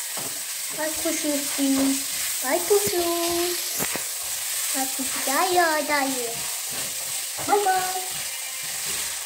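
A small child's high voice making four or five short calls and rising squeals, one of them "bye", over a steady sizzling hiss of food cooking on a gas stove.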